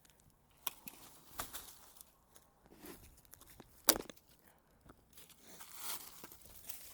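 Dry leaves and twigs crunching and crackling under slow footsteps, with irregular crisp snaps; the sharpest snap comes about four seconds in, and a longer rustle swells near the end.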